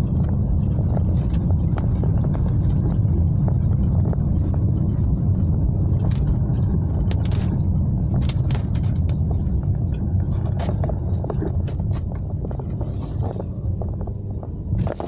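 Car driving on a wet road in heavy rain, heard from inside the cabin: a steady low rumble of engine and tyres, with scattered sharp taps throughout.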